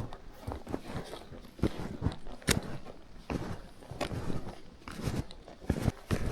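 Footsteps of a hiker on snowshoes crunching through snow, in an uneven walking rhythm of about two steps a second.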